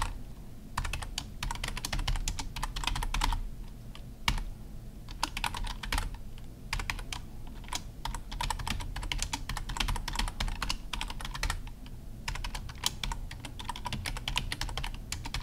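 Computer keyboard typing: runs of quick keystrokes broken by short pauses.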